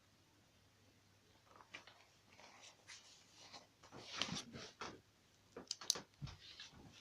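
Handling noises: irregular rustling and clicking, with a low thump about six seconds in.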